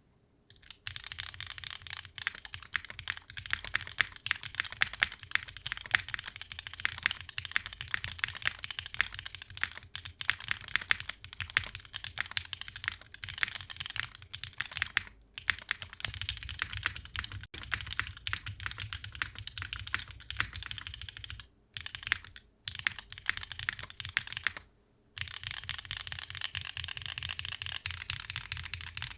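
Continuous typing on a mechanical keyboard with prototype Gateron L'Orange pre-lubed linear switches (POM stems, nylon housings), mounted in an aluminum plate with O-ring mounting and capped with GMK keycaps: rapid keystrokes and bottom-outs, with a few brief pauses.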